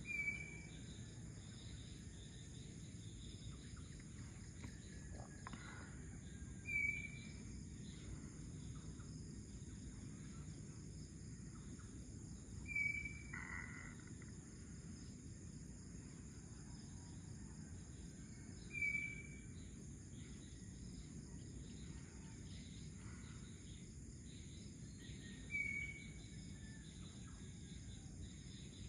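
A steady chorus of insects, with a short bird call repeated five times, about every six seconds.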